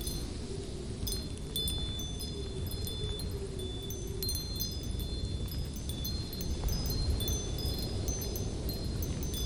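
Light wind blowing as a low, steady rush, with short, high ringing tinkles scattered through it.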